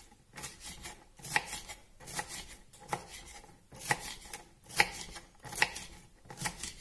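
Kitchen knife chopping red bell pepper on a wooden cutting board: regular, unhurried taps of the blade striking the board, a little more than one a second.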